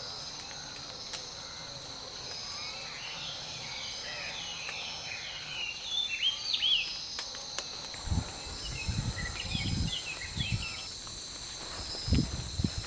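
Insects droning in a steady, high, even tone, with songbirds chirping in short repeated notes over them. From about eight seconds in, irregular low thuds and rumbles break in, louder than the birds.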